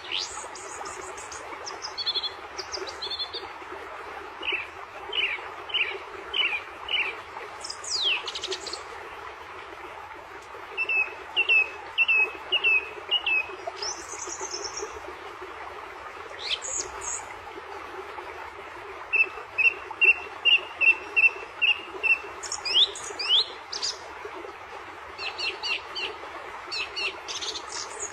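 Songbirds chirping and calling, with repeated runs of short high notes and quick trills in several different patterns, over a steady background hiss.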